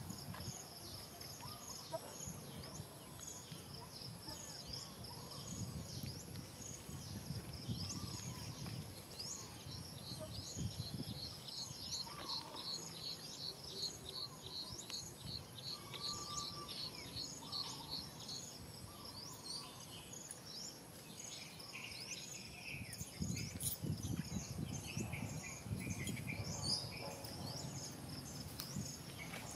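Forest ambience: a fast, high-pitched chirping repeated several times a second, with a few other short calls over a low rumble.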